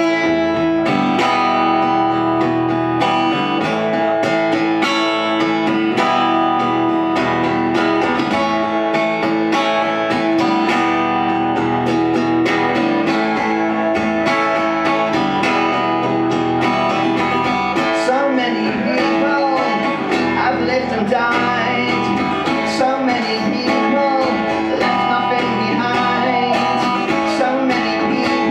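Acoustic guitar played live, a steady passage at an even loudness.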